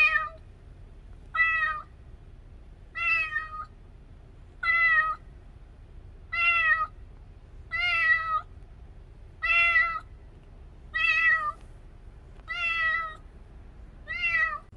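A young kitten meowing over and over, ten calls each about half a second long, coming about every second and a half.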